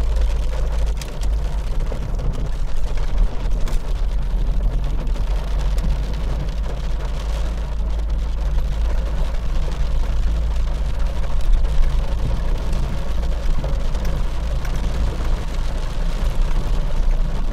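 Steady low rumble of a car's engine and tyres on a wet road, heard from inside the car, with rain spattering on the windscreen.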